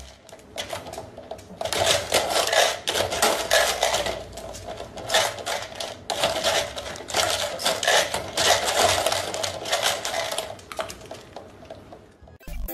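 Dry kibble rattling and clattering in a plastic cup as a small dog eats from it: fast, irregular clicking that thins out near the end.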